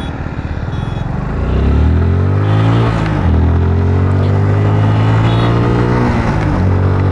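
Motorcycle engine accelerating, its pitch rising, then dropping at a gear change about three seconds in and running on steadily, with another brief dip near the end.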